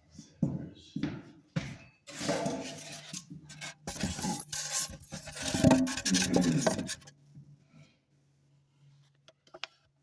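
Irregular rubbing and scraping, loudest from about two to seven seconds in, then a faint steady hum.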